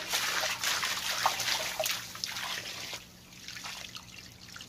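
Water spraying down and splashing into a plastic crate, streaming out through its slatted sides. Heavy for about the first three seconds, then lighter dripping and trickling.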